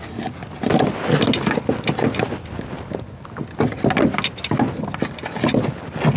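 RV shore-power cord being pulled out of its side compartment: heavy cable dragging and rubbing against the hatch, with scattered knocks and clicks.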